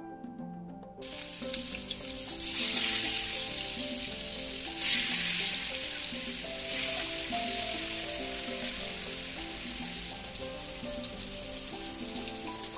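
Marinated fish pieces sizzling as they are laid into hot oil in a nonstick frying pan. The sizzle starts about a second in, flares loudly just before five seconds, then settles into a steady frying hiss, with soft background music underneath.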